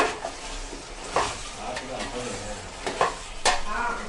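Chicken pieces frying in masala in a pot, sizzling, while a spoon stirs and knocks against the pot several times.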